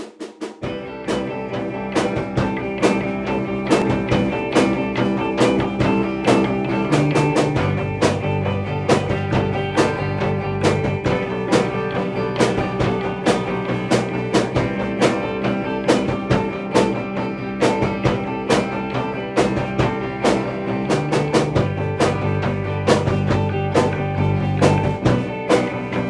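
A band playing an instrumental intro: a drum kit keeping a steady beat under guitar and bass, the bass note changing every few seconds, with no singing yet.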